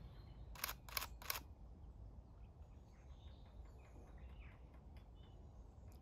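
Shutter of a 12-year-old entry-level DSLR firing three frames in quick succession, about three a second, starting about half a second in. Faint bird chirps and a low steady rumble sit behind it.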